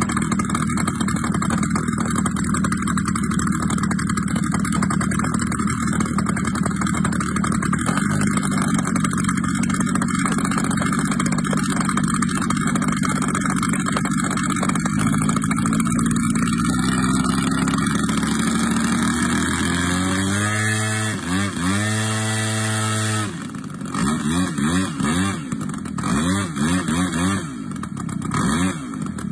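Engine of a large RC aerobatic propeller plane running on the ground. It climbs in pitch in steps as it is throttled up, then near the end it is revved up and down over and over.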